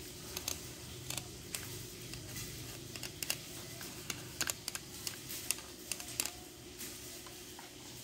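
Scattered light clicks and taps from handling the opened plastic drill housing and a screwdriver, over a steady low hum.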